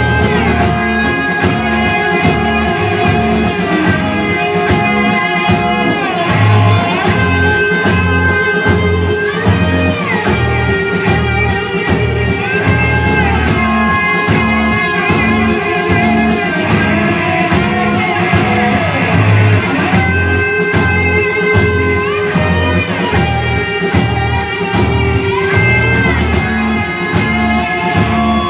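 Live rock band playing: two distorted electric guitars with long held and bent notes, over bass guitar and a drum kit keeping a steady beat.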